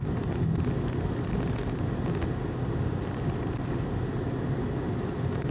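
Steady road and engine noise inside a moving vehicle's cabin, with faint light rattles.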